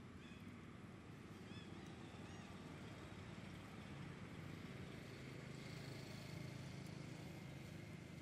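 Faint, steady low hum of a motor, a little louder in the second half, with a few faint, short, high chirps about two seconds in.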